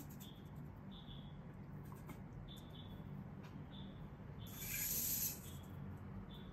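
Nybble robot cat's small servo motors whirring briefly, for under a second, as a leg joint swings to a new angle. Underneath are a faint hiss and soft, high chirps about once a second.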